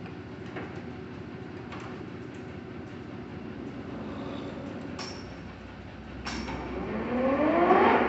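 A 1981 Lodge & Shipley Powerturn engine lathe with a 20 HP motor running steadily, with a few sharp clicks. Near the end a rising whine comes in and grows louder as the machine winds up in speed.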